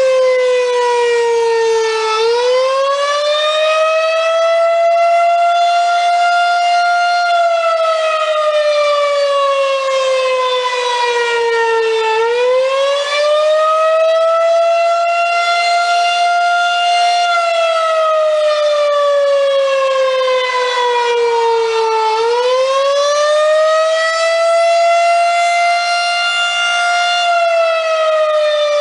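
Federal Signal 2001-130 single-tone electromechanical rotating outdoor warning siren sounding a wail. The pitch rises over about two seconds, holds briefly, then falls slowly over about five seconds, and the cycle repeats three times.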